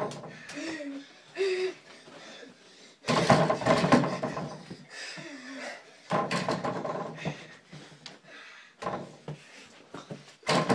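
A small basketball banging against an over-the-door mini hoop's backboard and the door it hangs on, in four loud bursts of thuds and rattling, with short cries from children.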